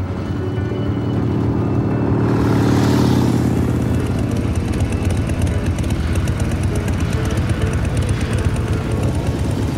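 Harley-Davidson motorcycle's V-twin engine running as the bike rides along, growing louder to its loudest about three seconds in as it passes close, then running on steadily.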